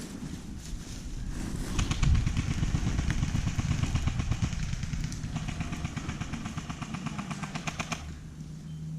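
Airsoft guns firing long full-auto strings, heard as rapid, evenly spaced clicks that start about two seconds in and stop about a second before the end, over a low rumble.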